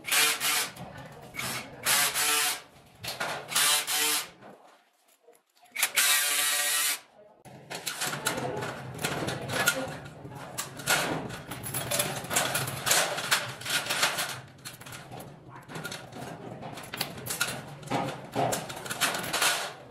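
Short bursts of a power tool against a concrete ceiling in the first half, the loudest about six seconds in, then a dense run of small metallic clicks and rattles as steel wire ceiling hangers are handled and bent with pliers.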